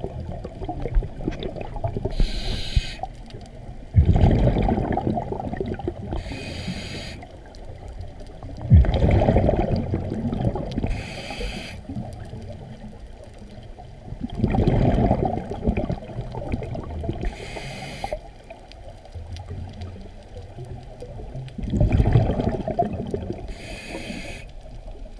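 A scuba diver breathing underwater through a regulator: a short high hiss on each inhale, then a louder low rush of exhaled bubbles. There are about five breaths, one every five or six seconds.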